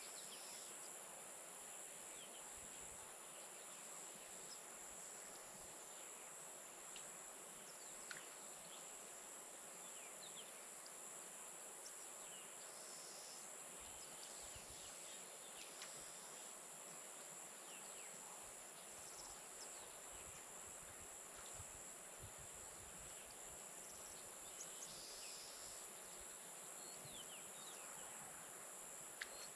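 Evening chorus of insects such as crickets, a steady high trilling, with scattered short bird chirps over it.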